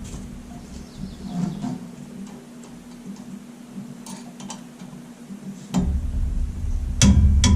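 Scattered light metallic clicks and taps of a tool working the set screws on a wood chipper rotor's bearing collar, with a sharper clank near the end and a low rumble coming in during the last couple of seconds.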